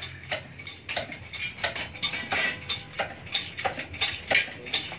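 Irregular light metallic clinks and taps, about three a second, some ringing briefly: metal tools and exhaust parts being handled and knocked in a metalworking shop.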